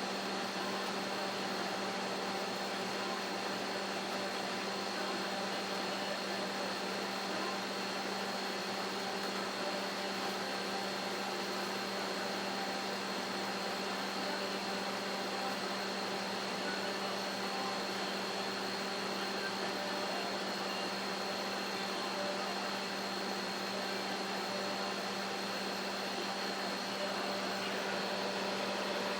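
Microwave oven running, heating pasta in water: a steady, unbroken hum with a constant low tone.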